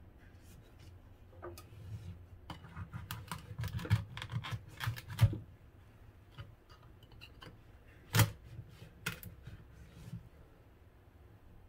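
Metal fork scraping roasted pumpkin flesh into noodle-like strands, its tines clicking and tapping against the rind. A dense run of quick scrapes and clicks comes a few seconds in, followed by a few sharper single knocks.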